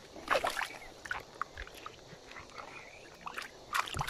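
Water splashing and pebbles knocking in a shallow, stony stream, in short irregular splashes and clicks, loudest about a third of a second in and again just before the end.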